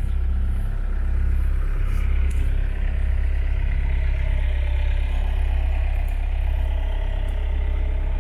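Six-tonne mini excavator's diesel engine idling steadily.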